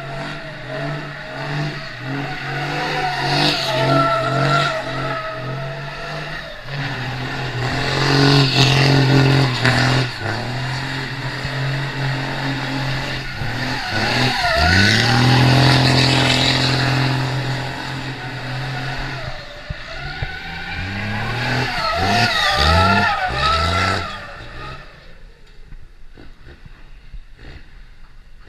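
Diesel pickup truck engine revving hard, its pitch rising and falling, with tyres squealing in a burnout; the noise drops away sharply near the end.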